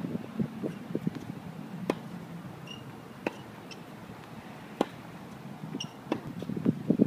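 Tennis balls being struck and bouncing on a hard court: three sharp pops about a second and a half apart, over a faint low rumble.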